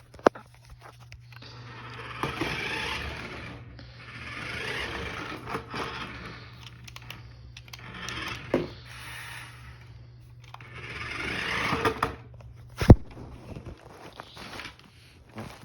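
Repeated scraping, in swells a second or two long, with a few sharp knocks; the loudest knock comes near the end.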